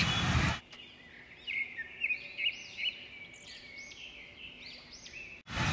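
A string of quick, high bird-like chirps over a faint hum, played with a channel logo card. Outdoor road sound and a voice cut off abruptly about half a second in and cut back in near the end.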